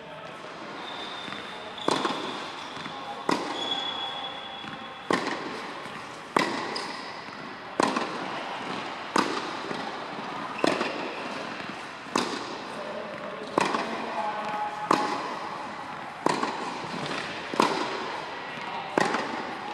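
Tennis ball struck by a racket over and over in a steady baseline drill, about one hit every second and a half, each sharp pop echoing in a large indoor hall.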